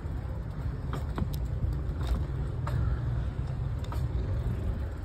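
Low, buffeting rumble of wind on the phone microphone, with several light clicks scattered through it.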